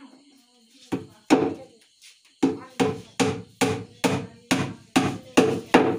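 Hammer driving small nails into a plywood speaker cabinet: two blows about a second in, then after a short pause a steady run of about nine sharp blows, roughly two and a half a second.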